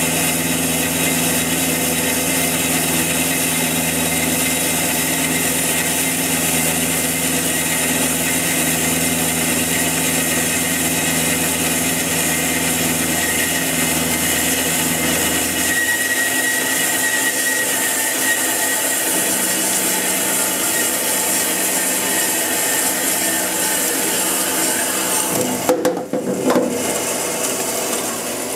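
JMT WV260 metal-cutting band saw running steadily, its blade sawing through a solid round metal bar under flood coolant. About three seconds before the end the sound changes abruptly as the blade completes the cut, and it starts to die away as the limit switch shuts the motor off.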